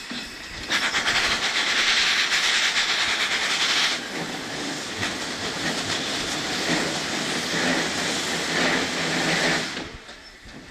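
Erie Type A steam shovel's steam engine working, with a loud hissing exhaust in rapid beats. It is loudest for the first few seconds, eases slightly, then stops abruptly near the end.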